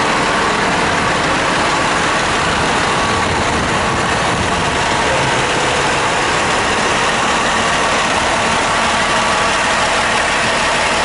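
Fire truck's diesel engine idling close by, a loud steady running noise.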